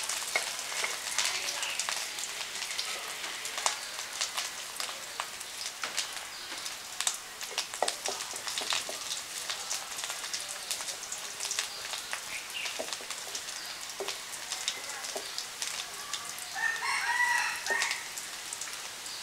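Spice paste frying in hot oil in a metal pot, sizzling with a dense crackle of small pops as it is stirred with a spatula. A brief animal call sounds near the end.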